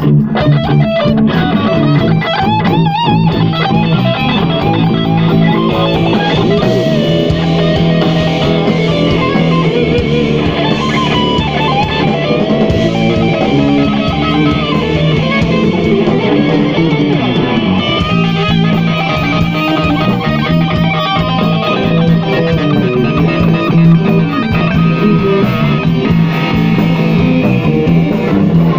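Live blues band playing at full volume: electric guitars over bass guitar and drum kit, with bending guitar lines.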